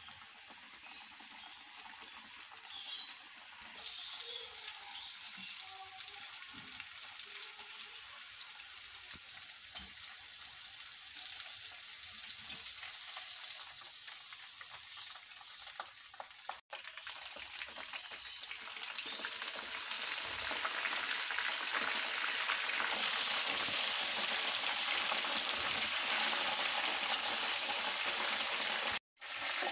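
Battered fish fingers deep-frying in hot oil in a wok, a steady bubbling sizzle that grows louder in the last third.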